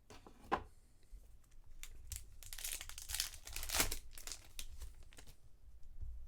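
Trading-card pack wrapper crinkling and tearing as a pack is opened and handled, a dense run of crackles that builds to its loudest in the middle and then thins out.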